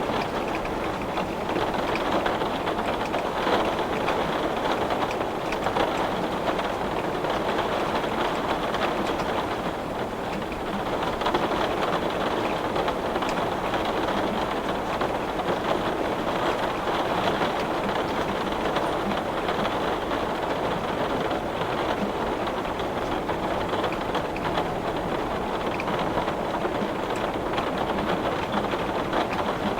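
Heavy rain pattering steadily on a glass window, a dense even hiss with scattered faint drop ticks.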